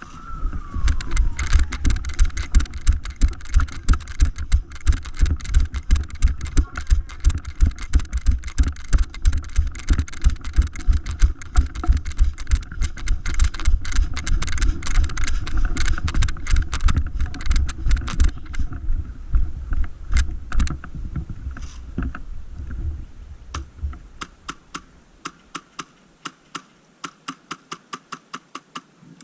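A siren tone falls away right at the start, then running footsteps with gear rattling come in quick, regular strides. After about 24 seconds the steps turn lighter and quieter, like walking.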